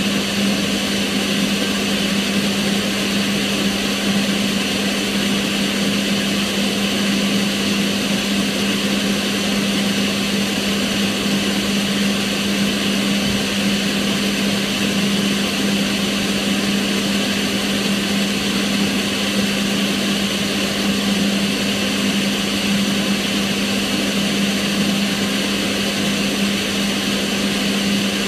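Kitchen range hood extractor fan running steadily: an even rushing of air with a constant low motor hum.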